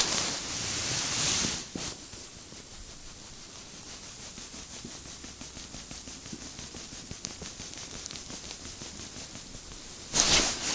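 Steady, even hiss with no pitched sound in it, louder for about the first second and a half, then a loud burst of noise about ten seconds in.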